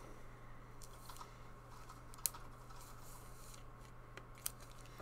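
Faint handling of a plastic card sleeve and rigid top loader as a trading card is slid in, with two sharp little clicks, one about two seconds in and one near the end, over a steady low hum.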